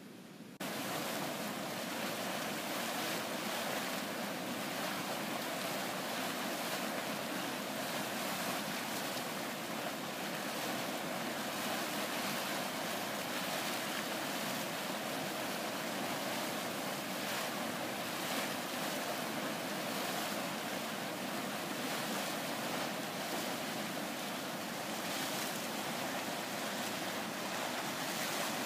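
Steady rushing hiss of a volcanic hot-spring source, boiling water and steam gushing out of the vent. It starts suddenly about half a second in and then holds even.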